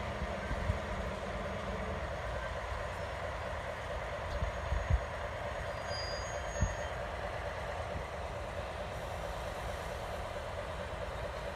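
Two coupled Kinuura Rinkai Railway KE65 diesel locomotives passing slowly, their engines running with a steady drone and low rumble. A few short thumps stand out around the middle.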